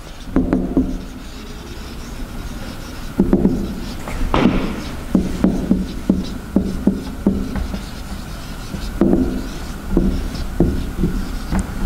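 Whiteboard marker rubbing across a whiteboard in short, irregular strokes as words are written, over a steady low hum.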